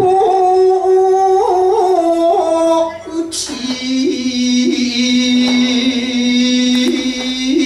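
Shigin chanting: a man's voice through a microphone holds long drawn-out notes of classical Japanese poetry, each ornamented with small wavering flicks in pitch, and drops to a lower held note about three and a half seconds in. A brief sharp noise cuts in about three seconds in.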